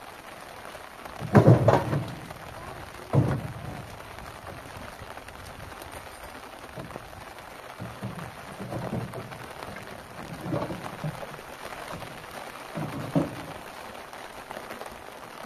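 Heavy wooden thuds and knocks of firewood branches and logs being loaded onto a pickup truck and dropped. The loudest thud comes about a second in, with more every few seconds, over a steady rushing hiss.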